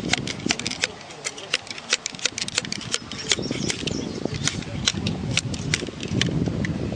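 Irregular sharp taps and clicks, several a second, as a patched round ball is started and pushed down the barrel of a .54 caliber Thompson Center Hawken muzzleloader with a ball starter, over a steady low rumble.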